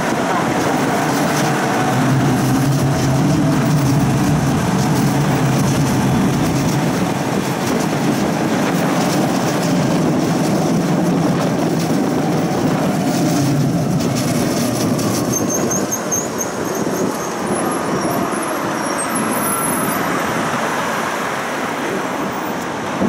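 Electric tram running, heard from inside the car: a steady hum of motors and wheels on the rails, easing off in the later part as it slows for a stop, with a faint high whine over it.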